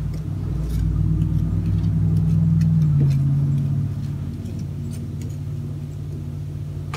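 A steady low mechanical hum that shifts in pitch about three seconds in, with faint clicks from a metal slotted spoon moving apple slices in a pie tin.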